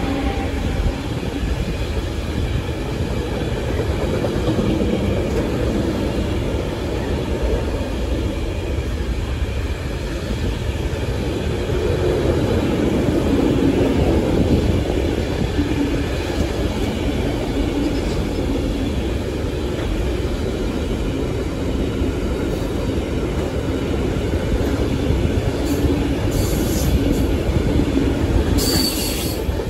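Container freight train wagons rolling past: a steady rumble and clatter of steel wheels on the rails, with brief high squeaks near the end.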